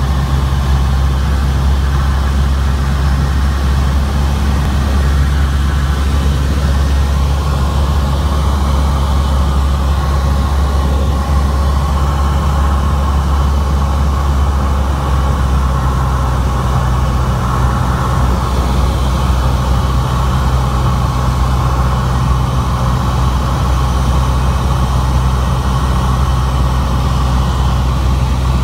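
Cessna 182's piston engine and propeller running with a steady low drone, heard from inside the cabin while the plane is on approach to land.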